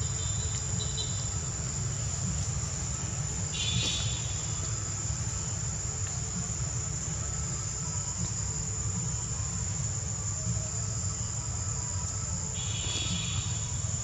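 Steady high-pitched drone of insects in the trees, with a low steady rumble underneath. Two brief louder calls stand out, about four and about thirteen seconds in.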